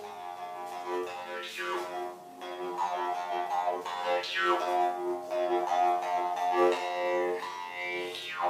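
Intro music played on string instruments, with notes changing steadily throughout.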